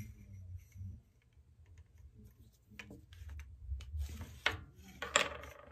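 Faint scattered light clicks and taps of small objects being handled, with a few louder short scuffs in the last couple of seconds.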